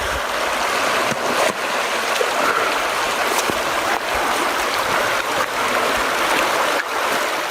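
Running stream water, a steady rushing flow with a few small splashes or knocks.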